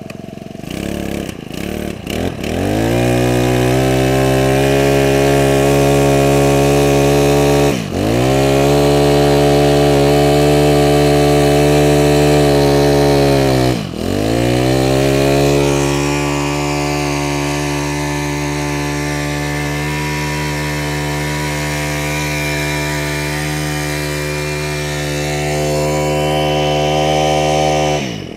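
Honda GX25 25cc four-stroke brush cutter engine running, revving up from a low speed to full throttle about two seconds in. It holds a steady high-revving note, dips in pitch and recovers twice as the throttle is briefly let off, and falls away near the end.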